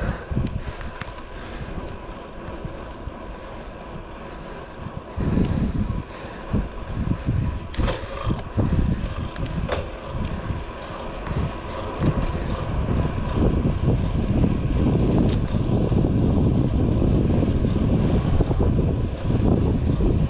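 Wind buffeting the microphone of a chest-mounted action camera on a moving road bike, a low gusty rumble. It grows louder about five seconds in and stays loud and steady for the second half. A couple of sharp clicks come near the middle.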